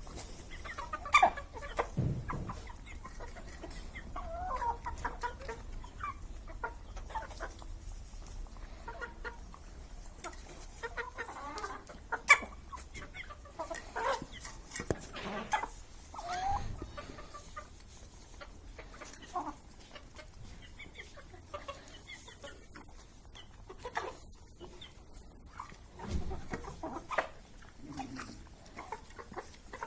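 Domestic chickens clucking in short, scattered calls, broken by a few sharp clicks, the loudest about a second in and again about twelve seconds in. The flock is ill with a sickness that makes the birds sneeze.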